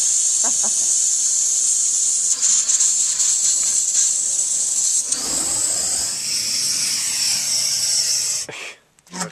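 Handheld propane weed torch burning, its flame giving a loud, steady hiss. The flame shuts off suddenly near the end.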